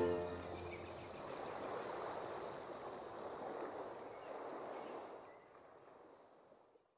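Steady rushing of a flowing stream, fading out about five seconds in. The last of a piano song dies away at the very start.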